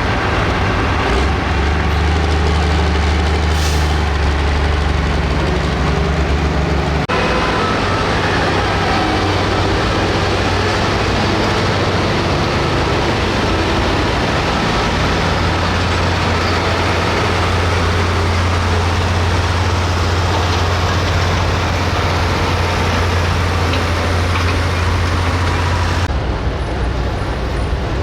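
Hot farm class pulling tractor engines running hard under heavy load, a loud steady engine note that breaks off and changes abruptly about a quarter of the way in and again near the end.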